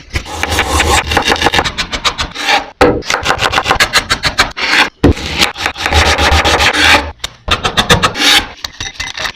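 Rapid rhythmic scraping strokes, several a second, in runs broken by short pauses.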